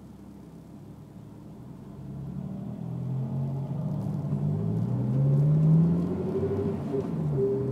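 Honda S2000's four-cylinder engine accelerating under throttle, its pitch and loudness rising after about two seconds, with a higher whine rising along with it. The pitch drops briefly near the end and then climbs again. The owner suspects the whine under throttle comes from the differential or the transmission.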